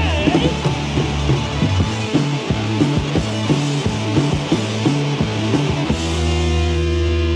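Late-1970s punk rock band recording: electric guitars, bass and drums playing a steady, driving beat. About six seconds in, the drums stop and a held chord rings on.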